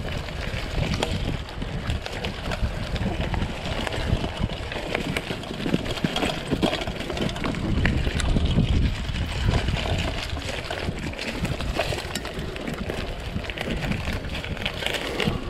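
Mountain bike ridden along a dirt trail: a steady rumble of wind on the microphone, with many small rattles and knocks from the bike over the bumps.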